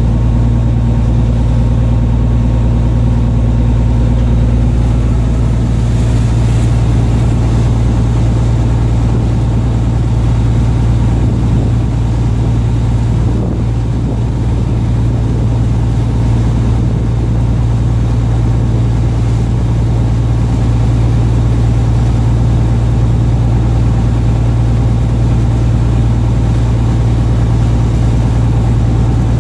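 Fishing boat's engine running steadily, a low even drone with no change in speed.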